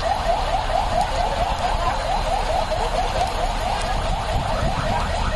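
Police siren on a convoy escort vehicle in fast yelp mode, about six rising sweeps a second, over a steady low rumble of traffic.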